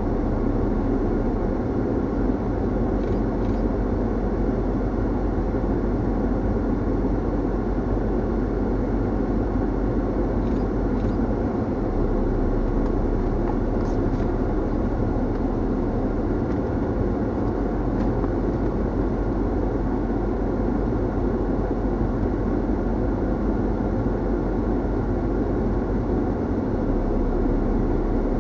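Steady road noise of a vehicle driving on an unsealed gravel road: tyre rumble and engine hum, with a few faint ticks.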